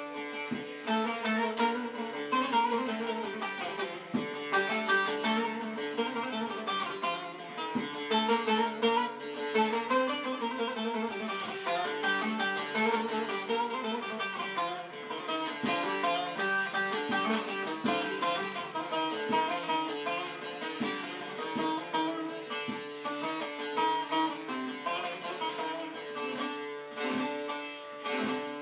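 Bağlama (Turkish long-necked saz) playing a quick plucked melody in an instrumental break of a Turkish folk song, without singing.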